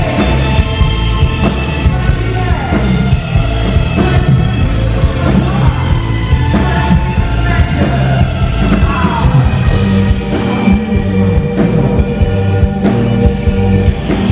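A rock band playing loudly live, with drums, electric guitar and bass under the singer's voice through the PA, at a steady driving beat.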